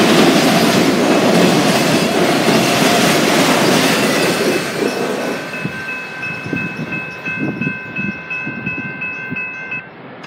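Autorack freight cars rolling past on jointed wheels, the rolling noise fading as the end of the train draws away. From about midway a grade-crossing bell rings steadily over the fading clatter and stops just before the end.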